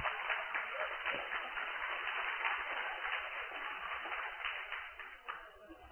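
Congregation laughing and clapping in response to a joke, dying away about five seconds in.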